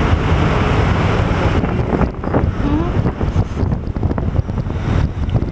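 Wind buffeting the microphone: a heavy, rumbling rush of noise that eases a little after about two seconds.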